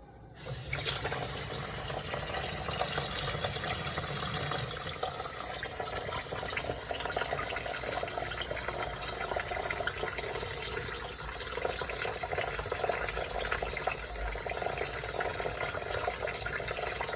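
Kitchen faucet running hot water into the sink, a steady stream of water that starts about half a second in.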